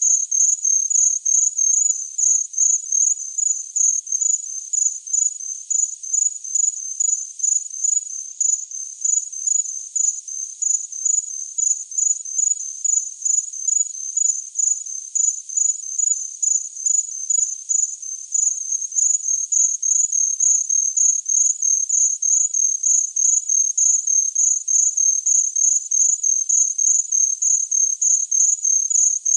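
A cricket chirping steadily: a high-pitched chirp repeating evenly, about three times a second.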